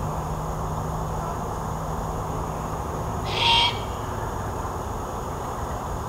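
A young great horned owl gives a single raspy, hissing screech lasting about half a second, a little after three seconds in. This is the begging call of a full-grown juvenile still asking its parents for food.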